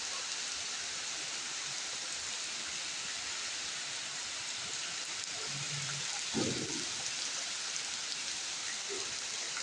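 Rain falling steadily: an even hiss of rain on surfaces.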